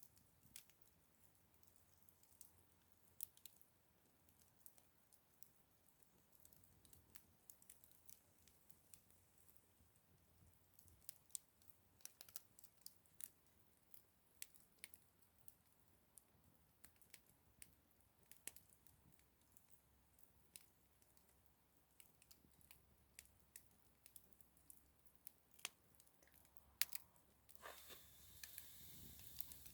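Campfire crackling: wood snapping and popping in irregular sharp clicks over a faint hiss, growing denser and louder for a couple of seconds near the end.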